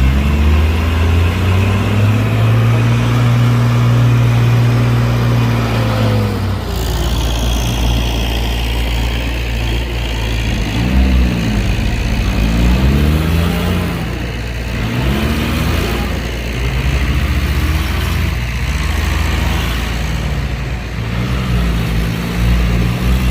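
Heavy diesel engine of earthmoving equipment running under load, its speed rising and falling again and again as it revs up and eases off.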